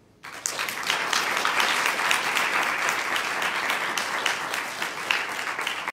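Audience applauding: the clapping breaks out suddenly a moment in and keeps up steadily.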